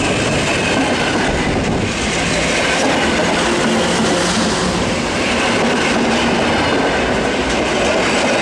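Train running along the station tracks: a steady rumble of wheels on rail, with clickety-clack over the rail joints and a faint high wheel squeal.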